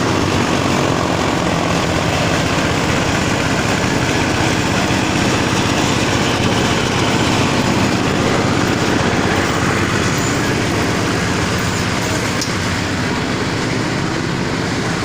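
A machine running steadily with a loud, even mechanical noise, a few faint ticks late on.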